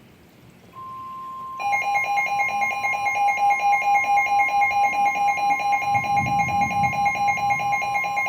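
NOAA Weather Radio's steady 1050 Hz warning alarm tone, the alert for a severe thunderstorm warning, starting under a second in. About a second and a half later a louder, rapidly pulsing electronic alarm beep from a weather alert radio receiver joins it.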